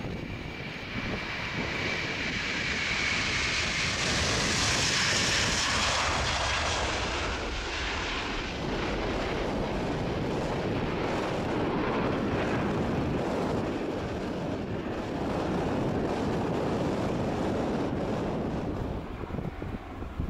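Twin-engine Airbus A330-300 jet airliner taking off at full power. Its engines are loudest and hissiest about five seconds in as it passes, with a high steady whine in the first few seconds. A heavy rumble follows as it climbs away, dropping off near the end.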